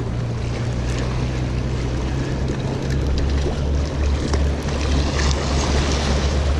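Low, steady drone of a boat engine over the wash of small waves on the rocks; the drone drops lower about three seconds in.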